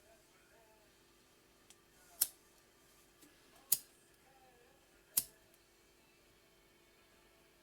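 Three sharp clicks, about a second and a half apart, over a faint steady hum.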